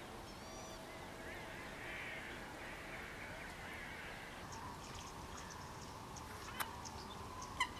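A distant chorus of many wetland waterbirds calling over one another, ducks among them. Brief high chirps come in during the second half, and two sharp clicks stand out near the end.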